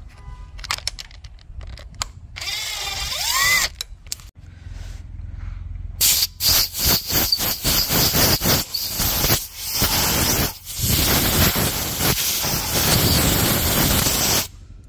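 Cordless power ratchet spinning an 8mm bolt out of the engine's front cover. There is a short run about two and a half seconds in, then a string of short trigger pulses and a longer run near the end.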